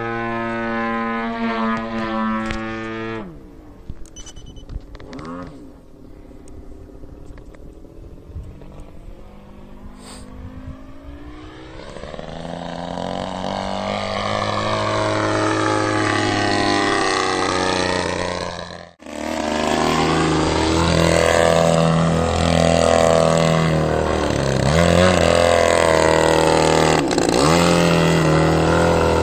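GP123 engine of a 2.2 m SebArt Miss Ultimate S model aerobatic plane in flight. It is loud at first, drops abruptly to a faint distant drone about 3 s in, grows steadily louder as the plane comes closer, and after a sudden break near 19 s runs loud and steady with the plane hanging nose-up close by.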